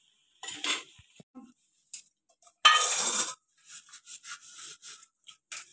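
Steel ladle scraping and clinking against the cooking pan and the serving plate as cooked pasta is spooned out, with one longer, louder scrape about halfway through and a run of small ticks after it.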